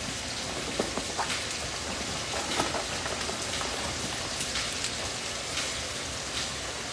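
Burger patties sizzling in a hot frying pan: a steady hiss with scattered pops and crackles.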